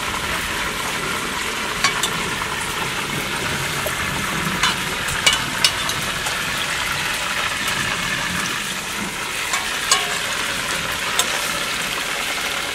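Pre-boiled chicken drumsticks frying in hot oil in a pan over a wood fire: a steady sizzle with a few sharp pops scattered through it.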